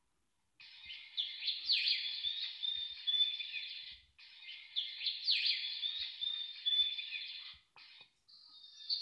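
A birdsong alarm tone being previewed: the recorded chirping plays through twice, the same pattern each time. Near the end it stops and a different alarm tone begins.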